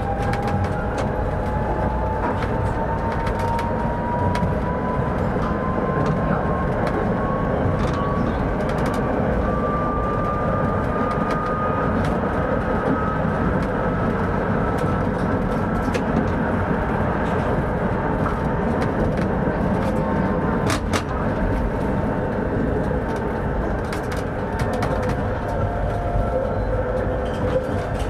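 Tram running between stops, heard from the driver's cab: the wheels rumble on the rails with occasional sharp clicks, and the electric traction motor's whine climbs slowly in pitch over the first half as the tram gathers speed.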